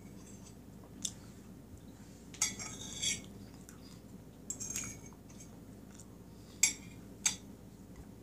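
Metal fork clinking and scraping on a plate while cake is scooped and eaten: a few sharp, separate clinks with a short scrape about two and a half seconds in.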